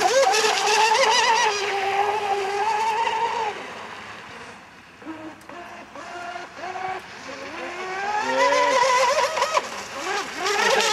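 Electric RC speed boat's motor and propeller whining at speed, the pitch wavering with throttle. The whine fades as the boat runs far off, then grows louder again near the end with rising and falling pitch as it comes back.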